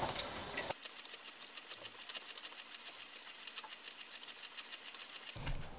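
Stationary exercise bike being pedalled, its drive and flywheel making a fast, even mechanical ticking.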